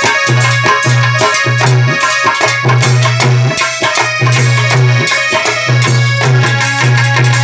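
Harmonium playing a melody, accompanied by a dholak beating a steady rhythm of low bass thumps and sharper treble strokes, in an instrumental passage without singing.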